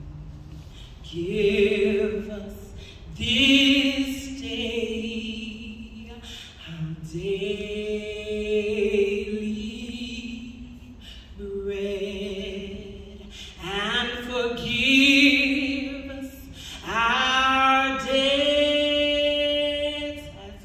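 A woman singing solo into a microphone with no accompaniment, in long sung phrases of held notes with vibrato and short pauses between them.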